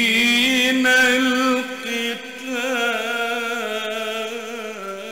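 A man's voice in melodic Quran recitation, drawing out long ornamented notes with quivering turns in pitch, which slowly grow quieter toward the end.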